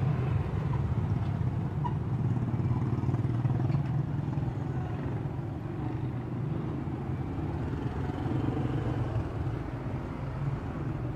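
Street traffic with motorcycle engines running steadily by, a continuous low rumble.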